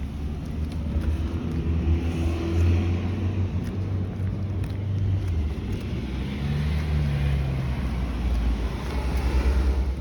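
Motor vehicle traffic going by: a low engine hum with tyre hiss that swells twice, then fades away right at the end.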